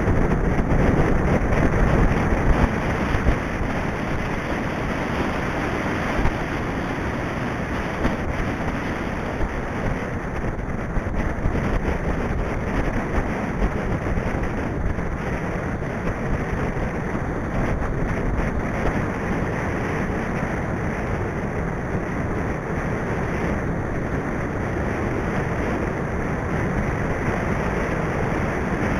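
Steady wind rushing over the microphone of a camera on a moving mountain bike, a little louder in the first few seconds.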